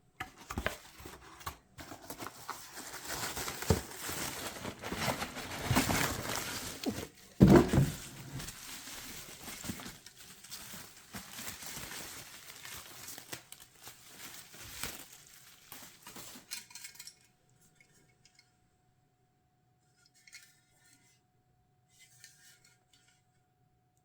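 Packaging being handled and unwrapped by hand, with paper or plastic crinkling and tearing and a few light knocks. It stops about two-thirds of the way through, leaving only a faint steady hum and a few soft ticks.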